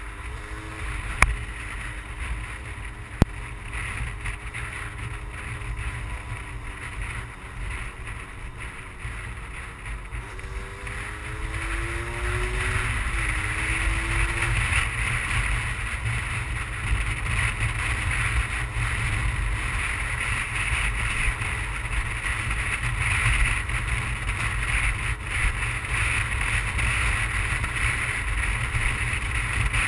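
A 50cc two-stroke manual-gearbox motorbike engine running under way, with its pitch climbing as it pulls through the gears about ten seconds in. Wind rushing over the helmet-mounted microphone grows louder as speed builds. There are two sharp clicks in the first few seconds.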